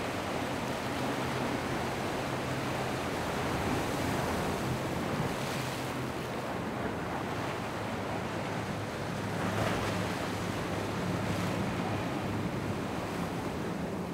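Center-console boats' outboard engines running with a steady low drone under the wash of wake and choppy water, with wind buffeting the microphone.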